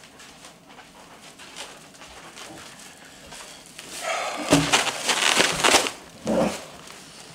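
Thin plastic carrier bags of takeout food rustling and crinkling as they are lifted and swung, then set down on a wooden table with a dull thump.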